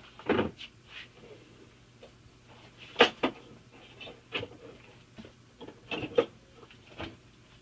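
Scattered knocks, clunks and clicks of tools and objects being picked up and set down while gear is fetched. The loudest is a sharp pair of knocks about three seconds in, with another cluster around six seconds.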